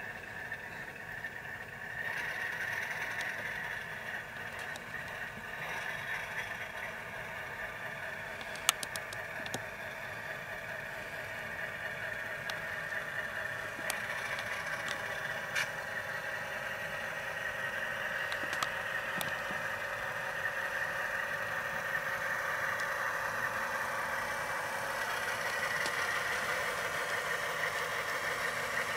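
Model RS3 diesel locomotive running with its Tsunami sound decoder playing a steady diesel engine sound through a small, tinny speaker. A few sharp clicks are heard along the way.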